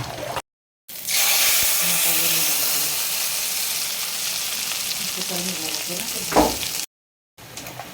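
Food frying in hot oil in a pan: a steady sizzle that starts abruptly about a second in and slowly eases, with one sharp knock near the end.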